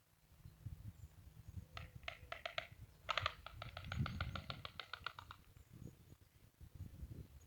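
White storks clattering their bills: a short rattle a little under two seconds in, then a longer, rapid rattle of about ten clacks a second lasting some two seconds, the storks' greeting display. A low rumbling noise runs underneath.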